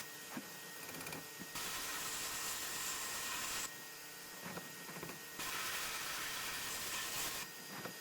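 Sandblasting cabinet's blast gun hissing in two bursts of about two seconds each, with pauses between, and faint knocks in the pauses.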